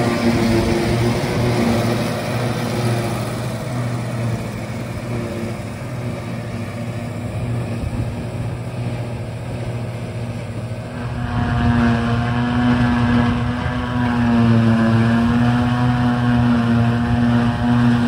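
John Deere 6710 self-propelled forage harvester working in grass silage, its diesel engine and chopping and pickup machinery giving a steady heavy drone under load. It gets louder about eleven seconds in.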